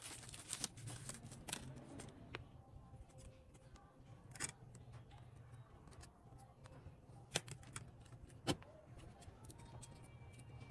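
Faint handling sounds of phone repair parts and packaging: bubble wrap crinkling near the start, then scattered light taps and a few sharper clicks, over a low steady hum.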